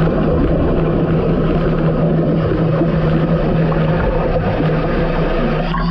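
A fishing boat's engine running steadily, a constant hum under a rushing noise of engine, water and wind.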